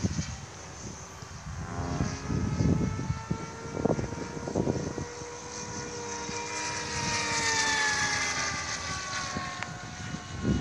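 Gaui R5 radio-controlled model aircraft flying overhead: its motor and propeller give a steady whine that slowly falls and rises in pitch as it passes. A few gusts of wind buffet the microphone.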